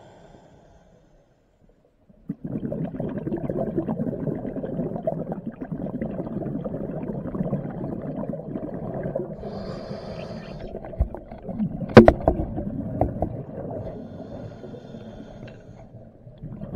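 Scuba diver's exhaled air bubbles from the regulator, heard through an underwater camera housing: a crackly gurgling rush that starts a couple of seconds in, with a brief higher hiss partway through and one sharp knock about twelve seconds in.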